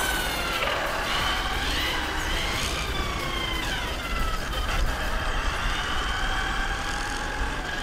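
Brushless electric motor of a ZD Racing 08425 1/8-scale RC buggy whining as it drives, its pitch rising and falling with the throttle, over a steady low rumble.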